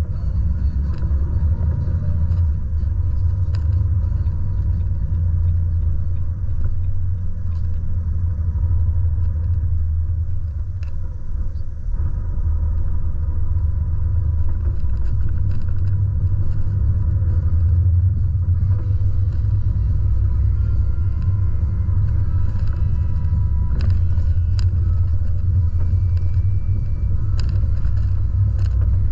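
Volvo truck's engine and road noise heard from inside the cab while driving: a steady low rumble, with a few light clicks and rattles near the end.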